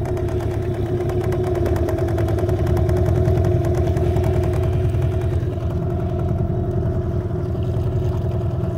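15 hp outboard motor running steadily under throttle, driving a small rowboat as the driver works to get it up on plane. It is a steady engine hum that swells slightly a few seconds in.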